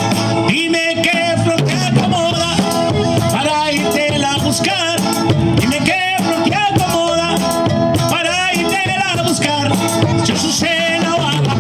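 Latin band music with singing, playing steadily.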